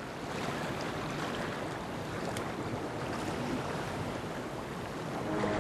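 Steady rush of sea waves and wind, with a few faint clicks.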